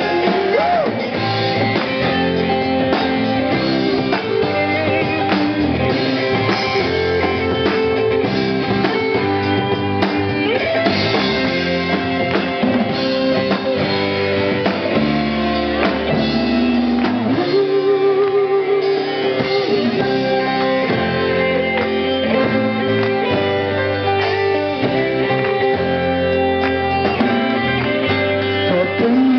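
Live band playing a song through a PA, with guitars to the fore over bass and drum kit.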